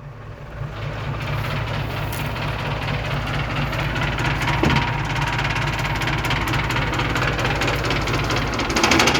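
Engine running steadily through a rebuilt exhaust fitted with a replica Ragasa silencer drum, sound-checked after modification. It swells briefly louder near the end.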